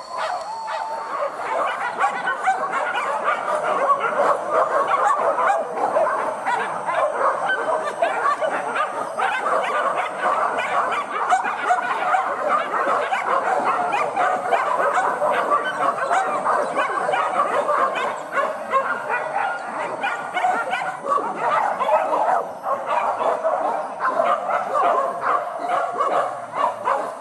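A pack of hunting dogs barking and yelping without a break, many voices overlapping, as they chase a wild boar.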